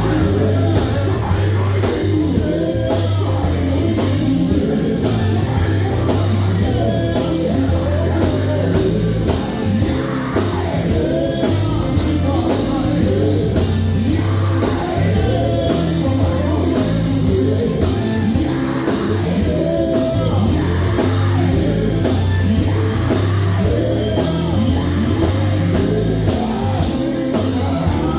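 Live gospel group singing over a loud amplified band, with a heavy bass line and a steady drum beat.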